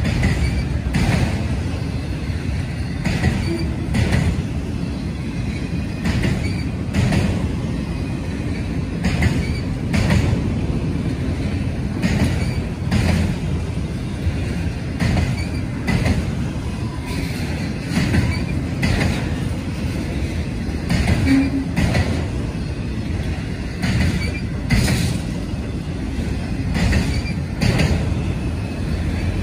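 CSX freight train of autorack cars rolling past: a steady low rumble of steel wheels on rail, with a sharp click about once a second.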